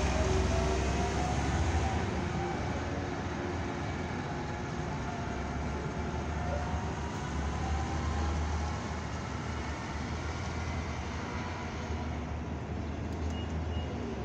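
NABI 60-BRT articulated transit bus pulling away and accelerating, its drivetrain whine rising in pitch in the first couple of seconds. It then settles into a steady rumble that slowly fades as the bus drives off.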